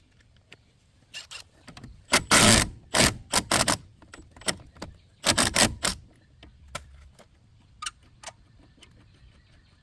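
Metal clanking and rattling from tools and brake hardware being handled, in three louder bursts about two, three and five seconds in, with lighter scattered clicks between.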